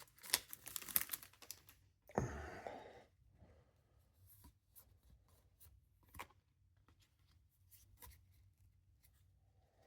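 A foil trading-card booster pack crinkling and tearing open, with a short rustle about two seconds in, then faint clicks and ticks as the cards are handled.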